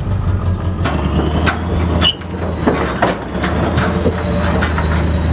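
Truck engine running steadily while a livestock trailer rattles and clanks as the first load of cattle pulls away.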